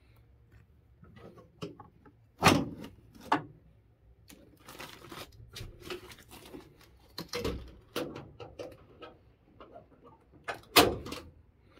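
Clunks and knocks of a plastic upright vacuum cleaner and its metal handle being handled and stowed in the back of a van, with rustling between them; the loudest knocks come about two and a half seconds in and near the end.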